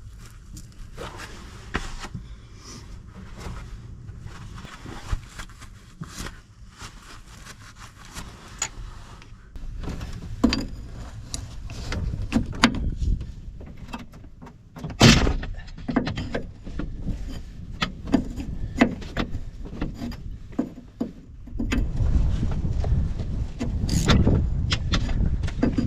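Scattered knocks and clicks of hand work, then a vehicle engine running low and steady, with a loud single thump about fifteen seconds in. The engine grows louder near the end.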